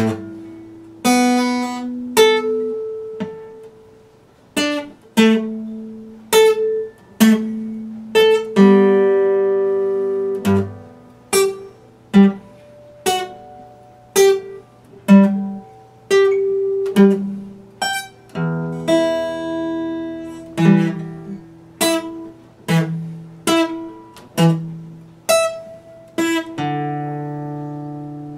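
Epiphone acoustic guitar played solo, chords struck about once a second and left to ring out, with a few held longer, one near the end.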